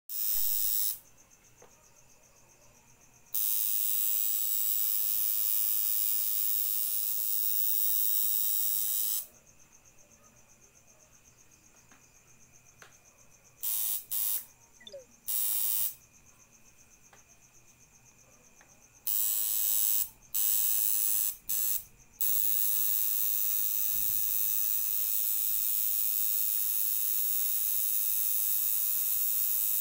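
Electric tattoo machine buzzing steadily as the needle works ink into skin, switched on and off. It runs in long stretches, stops for a few seconds several times, and gives a few short bursts about halfway through.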